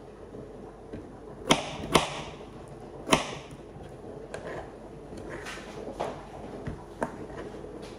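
Kitchen knife cutting raw potato into chunks on a cutting board: a series of sharp knocks as the blade hits the board, the loudest three about one and a half, two and three seconds in, then a few lighter ones.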